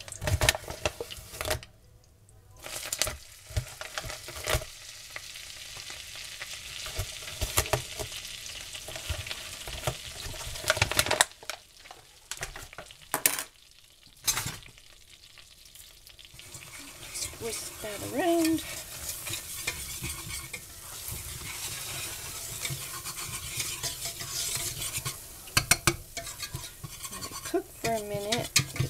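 Melted butter sizzling in a stainless steel saucepan. About halfway through, flour goes in and a wire whisk stirs it into a roux, clicking and scraping against the pan.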